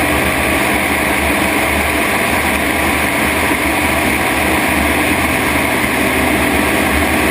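Christen Eagle aerobatic biplane's piston engine and propeller running steadily in flight, mixed with a steady rush of passing air.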